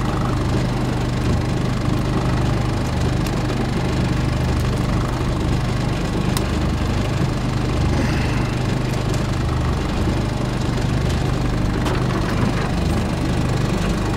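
Evinrude 40 outboard motor idling steadily, with a few faint clicks over it.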